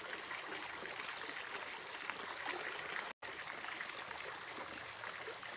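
Small mountain stream flowing steadily over rocks, an even rushing of water, briefly cut off for an instant about three seconds in.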